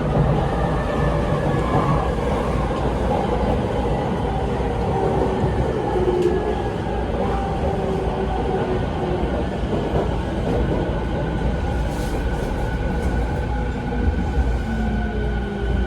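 Rinkai Line 70-000 series train's Mitsubishi IGBT-VVVF inverter and traction motors whining while running, over wheel-on-rail rumble; several tones slide slowly in pitch. This Z3 set is known for an inverter sound unlike the rest of the class.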